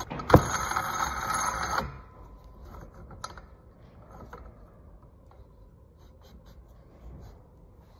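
Metal-on-metal clicking and scraping as a helix-spring compressor tool is threaded onto and turned on a snowmobile's secondary clutch. A loud rattling scrape with a sharp click in the first two seconds, then only faint light clicks and rubbing as the tool is spun on.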